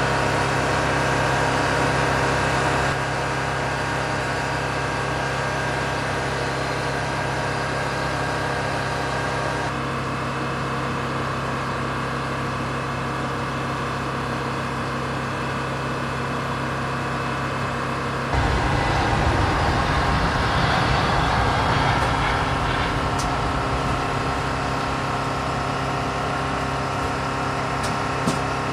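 Military aircraft engines running on an airfield flight line: a steady, fairly loud hum of many tones over a rumble. The sound changes abruptly a few times, and grows louder and rougher about two thirds of the way through.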